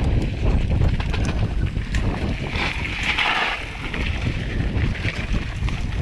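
Wind buffeting the microphone of a mountain bike's action camera on a fast ride over a rough dirt trail, with many small knocks and rattles from the bike over the bumps. A brief hiss rises about halfway through.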